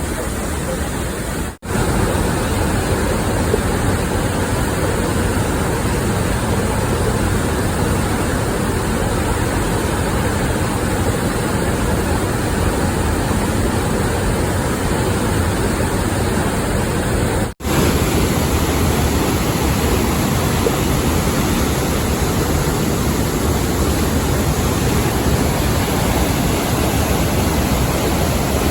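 Steady, loud rushing of fast-flowing river water. It drops out for an instant twice, once early and once about two-thirds of the way through.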